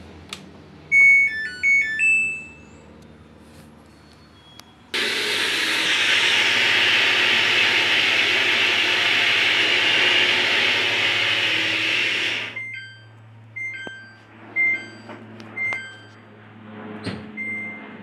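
Samsung heat pump dryer's control panel beeping as its buttons are pressed, then a loud steady rushing hiss for about seven seconds that cuts off abruptly, followed by a run of about five short, evenly spaced beeps as the display shows an error code.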